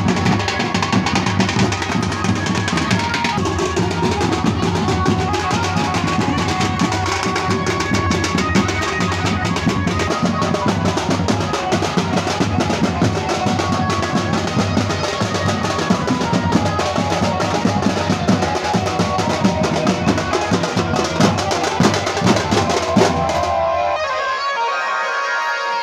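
Large double-headed folk drums played in a fast, continuous rhythm together with other music. About 23 seconds in, the drums drop out for about two seconds, leaving only a higher melodic line, then come back in.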